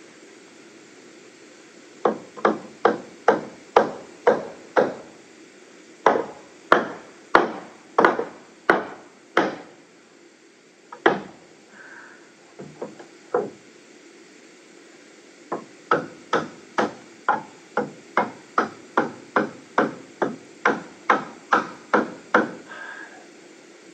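Hammer driving nails into wood in quick, even runs of blows, about two to three strikes a second. There are three runs, with a few single knocks between the second and third.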